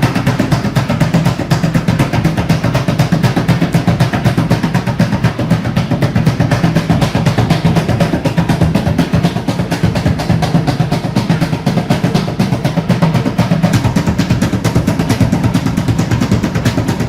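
A drum beaten rapidly and steadily, several strokes a second without a break, with a low, booming tone. Two speakers mounted inside the drum vibrate with the strokes to generate electricity.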